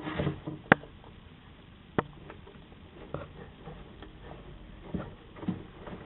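A bearded dragon scrabbling over its bowl and food dish: a short scraping rustle at the start, then a few sharp, separate clicks of claws and jaws on the hard surfaces.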